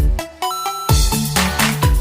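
Electronic dance music with a heavy kick-drum beat and synth notes; the beat drops out briefly and comes back just before a second in.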